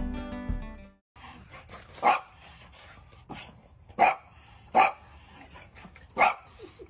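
Guitar music fades out in the first second. Then a French bulldog barks four times, short single barks a second or two apart.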